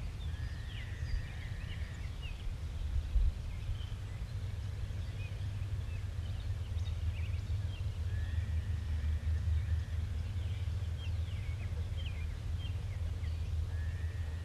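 Outdoor ambience of birds chirping and calling over a steady low rumble. A held call, rising at its start, comes three times, about six seconds apart.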